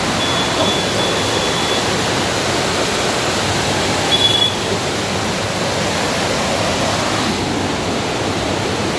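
Fast river water rushing and churning through the open sluice gates of a barrage: a loud, steady rush of white water. A faint high tone is heard briefly twice.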